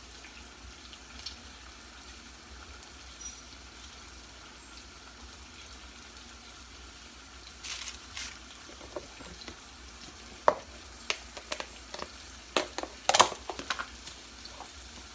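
Pork chops sizzling steadily in a frying pan. From about halfway on, a string of sharp clicks and knocks comes from a plastic container being handled on the counter.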